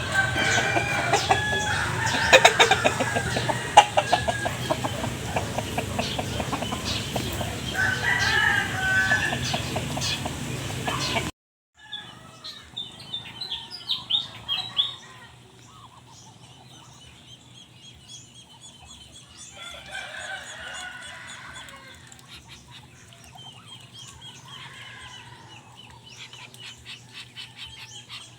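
A flock of chickens clucking, with a rooster crowing. The sound drops suddenly and is quieter from about eleven seconds in.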